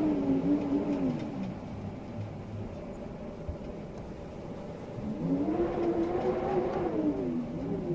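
Howling wind: a low moaning tone swells and falls away in the first two seconds, then rises again about five seconds in and sinks near the end, over a steady rush of air.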